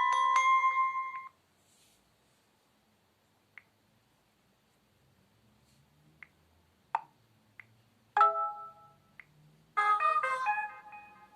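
LG Leon phone's speaker playing short notification tones: a rising run of mallet-like notes that ends about a second in, then a few faint clicks, a single short chime that rings out about eight seconds in, and a quick run of notes near the end.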